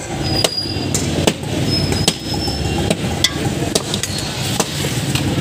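Sharp metallic clinks and knocks, irregular and about one a second, of a steel bowl and utensils striking a large steel mixing bowl, over a steady hum of street noise.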